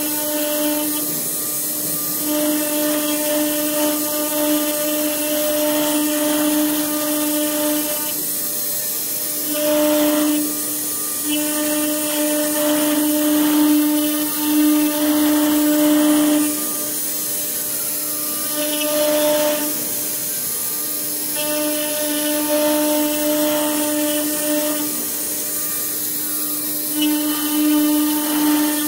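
CNC router spindle running at a steady high pitch while its pointed bit carves a pattern into a chipboard panel, the cutting noise swelling and fading several times as the tool moves through the cut.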